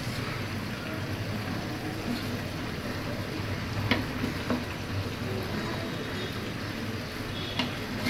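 Milky gravy simmering and bubbling around pieces of fried koi fish in an aluminium pan, over a steady low hum. A few light knocks of a wooden spatula against the pan come about four seconds in and again near the end.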